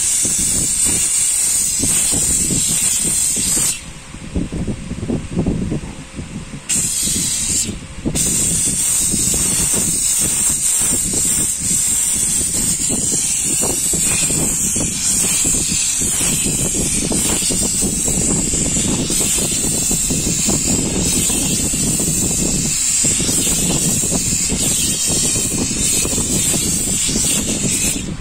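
Steam cleaner wand hissing as it jets steam onto a fabric car seat, over a steady low rumble. The jet of steam stops for a few seconds about four seconds in, resumes, and briefly cuts out again about eight seconds in before running on steadily.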